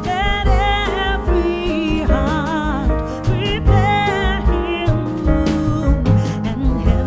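Background music: a song with a singer, sung with vibrato, over a steady beat and bass.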